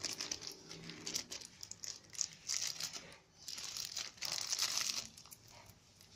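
Packaging crinkling and tearing as a parcel is unwrapped by hand, in irregular fits and starts with a brief lull about three seconds in.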